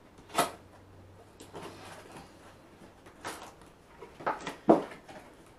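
Cardboard box being opened and its packed contents handled: several short scrapes, rustles and knocks, the loudest about half a second in and again near the end.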